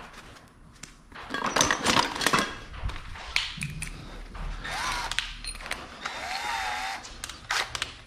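Hand tools clinking and rattling as a tool bag is rummaged through, loudest between about one and a half and two and a half seconds in, followed by scattered lighter knocks and handling noises.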